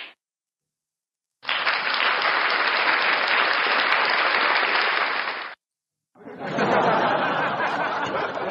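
Canned applause sound effect played from the F998 soundcard's built-in effect pads: about four seconds of clapping that cuts off abruptly. After a short gap, a second crowd effect of applause and cheering starts near the end.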